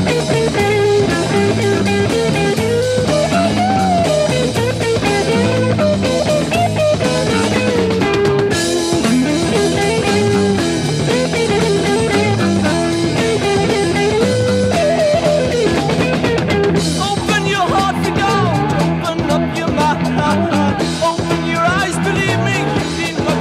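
1972 psychedelic rock recording: electric guitar and drum kit over a steady bass line, with a wavering lead melody running above them.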